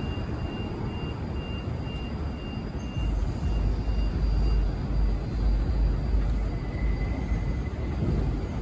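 Subway train running at the station: a steady rumble that deepens and grows louder about three seconds in. A faint high tone pulses about twice a second through the first half.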